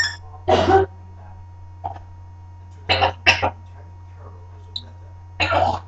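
Parrot coughing: a short cough about half a second in, a quick double cough around three seconds in, and another near the end.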